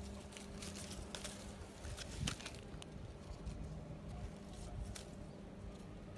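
Raspberry leaves and canes rustling and crackling as ripe berries are picked by hand, a quick run of short rustles in the first couple of seconds, loudest about two seconds in, then sparser. A steady low hum sits underneath.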